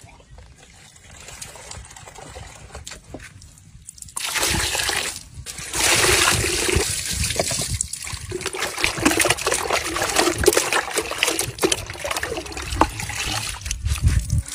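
Water running and splashing into a plastic bucket of raw cow offal, starting about four seconds in with a short break, then sloshing as the pieces are washed.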